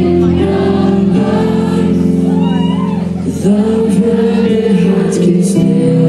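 Live pop-rock band playing loud through an outdoor stage sound system, with held chords and singing.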